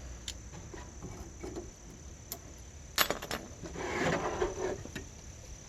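Small metal clicks and clinks of screws and washers being handled, with a sharp click about three seconds in and then a brief scratchy rasp as a screw is started into the wood.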